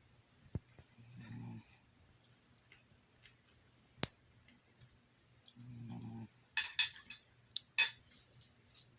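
Domestic cat snoring in its sleep: two snores about four and a half seconds apart, each a low rumble with a high, hissing whistle over it. Near the end comes a quick run of sharp clicks, louder than the snores.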